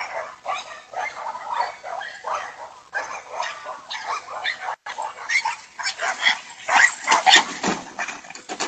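Dogs barking repeatedly, many barks in quick succession.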